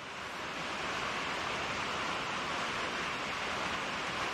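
Rain falling on a metal roof, a steady even hiss with no separate drops standing out.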